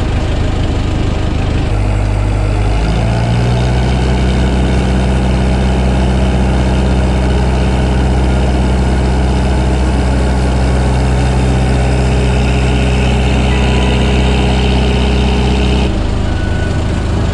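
Inboard engine of a small fishing boat running steadily under way, with the rush of water from the wake. Its note steps up about two to three seconds in and changes again near the end.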